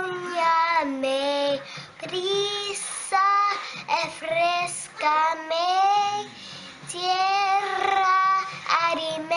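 A young girl singing a song with no accompaniment, in long held, wavering notes broken by short pauses for breath.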